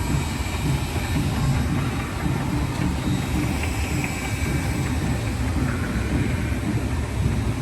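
Steady low rumble of a river-rapids raft ride in motion: raft and ride machinery running, with no clear rhythm or single event standing out.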